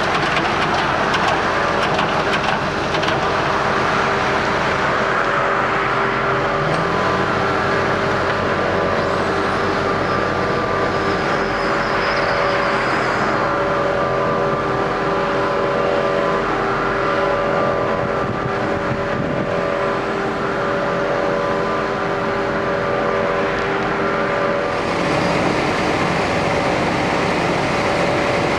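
Heavy diesel road-paving machinery running steadily at work, with several steady engine tones. A low engine note rises about six seconds in, and the mix of tones changes near the end as one machine's note drops out and another comes in.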